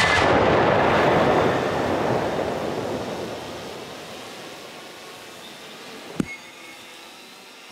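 Rolling echo of a black-powder anvil-shooting blast, loud at first and dying away over about four seconds. A single sharp knock comes about six seconds in.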